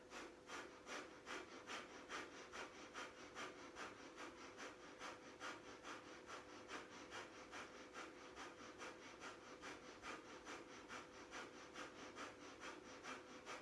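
Faint, rapid, rhythmic powerful breathing, about three short breaths a second, kept up steadily as a Kundalini yoga breath exercise.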